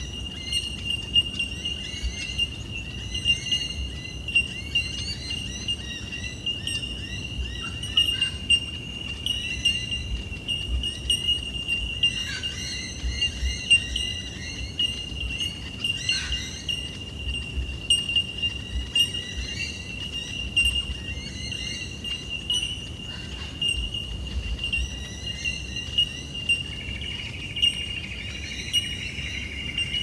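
Australian bush ambience: many small birds chirping and twittering over a steady, high-pitched insect drone, with a low rumble underneath.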